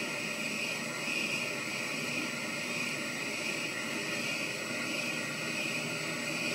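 Wabeco bench lathe running steadily while its tool turns a white acetal (POM) rod, peeling off a continuous chip. The sound is an even machine whir and hiss with a thin high whine held at one pitch.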